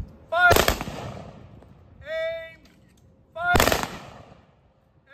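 Rifle volleys of a ceremonial firing party: two volleys about three seconds apart, each fired on a shouted command, with a short echo after each.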